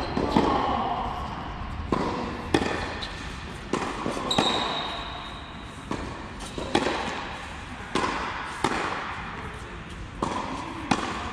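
Tennis ball being hit back and forth in a rally: sharp racket strikes and ball bounces on the court, coming in pairs about every second or two.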